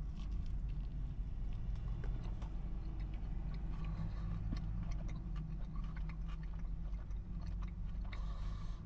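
A man chewing a bite of soft shrimp quesadilla, with faint, irregular mouth clicks, over a steady low hum inside a car cabin.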